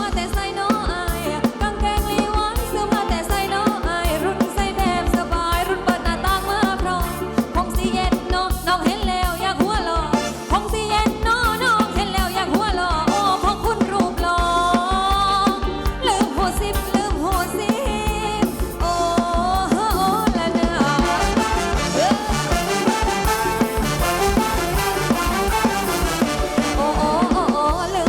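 Live Thai ramwong dance band music: a steady drum beat under a bending melody line.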